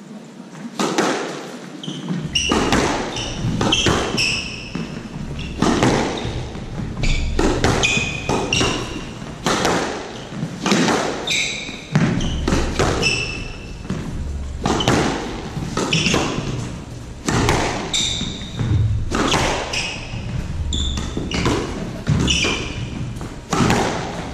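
Squash rally: a steady run of sharp cracks as the ball is struck and hits the walls, roughly one every half second to a second, with short high squeaks of court shoes on the hardwood floor between shots.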